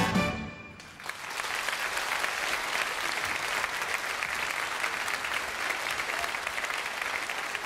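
The last notes of a song die away, and about a second in a studio audience breaks into steady applause.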